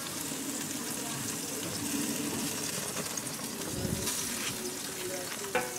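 Food sizzling on a barbecue grill: zucchini halves, corn cobs and pork chops cooking on the grate, a steady hiss with a low thump about four seconds in.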